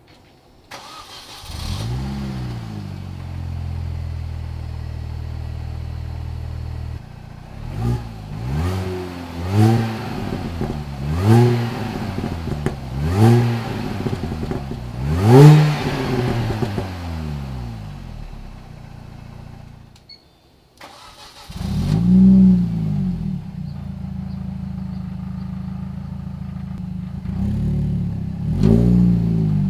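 Exhaust of an R53 Mini Cooper S's supercharged 1.6-litre four-cylinder: the engine is started, flares and settles to idle. It is then revved in five short blips that rise and fall before returning to idle. After a cut it is started again, flares, idles and is blipped near the end.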